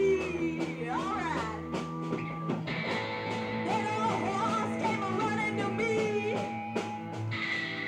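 Live rock band playing: a woman sings lead over distorted electric guitars, bass guitar and a drum kit.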